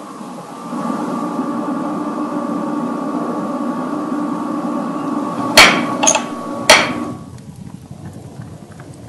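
A steady machine-like hum with a low and a higher tone, broken by three sharp knocks about five and a half to seven seconds in, after which the hum stops.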